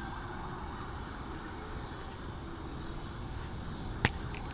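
Steady low outdoor background rumble and hiss with faint steady tones, and a single sharp click about four seconds in.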